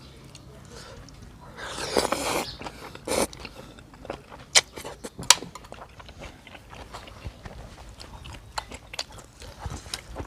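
Close-miked eating of beef noodle soup: two loud noisy slurps about two and three seconds in, then chewing and crunching with many short sharp clicks.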